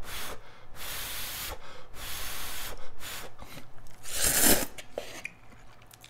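Close-miked slurping of instant shrimp cup noodles (saeutang-myeon) sucked up from chopsticks: a long slurp lasting about two seconds, then a shorter, louder one about four seconds in.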